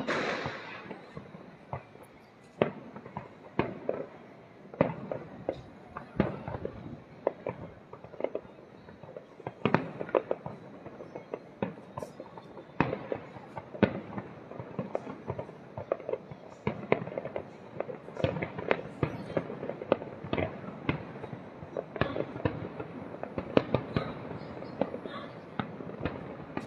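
Aerial fireworks exploding in a continuous barrage of sharp bangs and booms at irregular intervals, with crackling between them.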